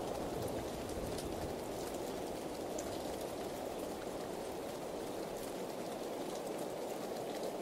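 Steady rain falling, an even hiss with scattered faint drop ticks. The low tail of a thunder rumble dies away over the first couple of seconds.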